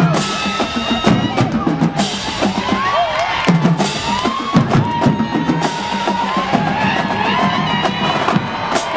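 Drum-heavy music with bass drum and sharp percussion hits over a repeating low note, mixed with many overlapping voices.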